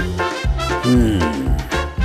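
Swing-style background music with a steady bass beat about twice a second.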